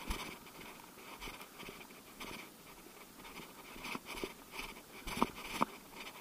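Footsteps and rustling as a walker pushes through dry bracken and scrub, with irregular crackles and brushing noises. They are sparse in the middle and busier and louder from about four seconds in.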